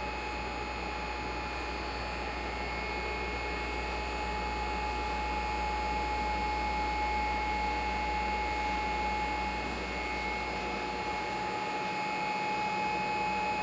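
Railway platform ambience: a steady rush of noise with a steady high-pitched tone running through it, unchanging throughout.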